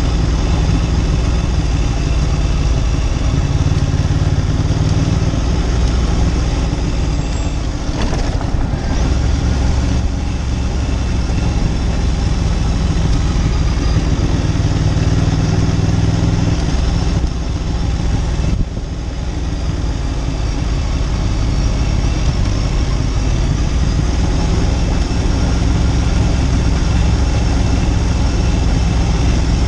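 Ducati Monster 900's air-cooled L-twin engine running under way on the road, its pitch shifting a few times. The sound dips briefly twice, about eight and nineteen seconds in.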